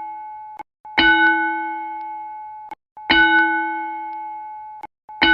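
Automatic school bell from a digital broadcast system striking single bell tones about every two seconds, each ringing out and fading before the next. Two full strikes fall inside, with a third right at the end. The run of four strikes marks the fourth period.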